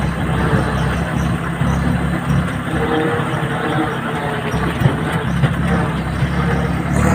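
Farm tractor engine running steadily with a low, even drone.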